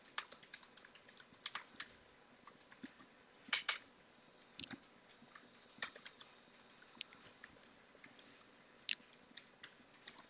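Typing on a computer keyboard: irregular runs of quick key clicks broken by short pauses.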